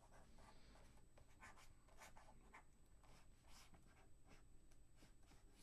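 Faint, irregular strokes of a drawing tool scratching on paper during sketching, a few short strokes a second.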